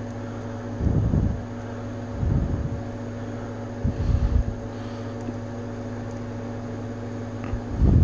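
Low rumbling handling noise as hands fumble with a small plastic action figure close to the microphone, swelling briefly about four times over a steady background hum.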